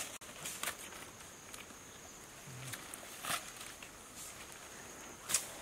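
Quiet, scattered clicks and crackles of green bamboo stems and honeycomb being handled, over a faint steady high tone.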